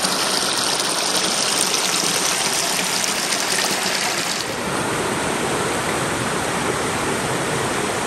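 Small waterfall running steadily: an even rush of falling water at a low flow, the stream still low before the rains. The hiss softens a little about halfway through.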